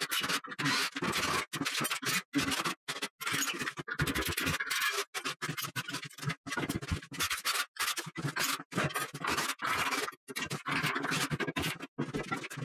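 Scraping and scratching from dismantling a built-in closet's panelled wooden-frame wall, as panels and screws are worked loose. The noise comes in quick, chopped stretches that break off suddenly into brief silences many times over.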